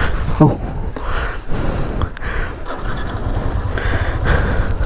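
Motorcycle engine running at low speed while the bike is ridden slowly over rough, rocky ground, with a steady low rumble throughout.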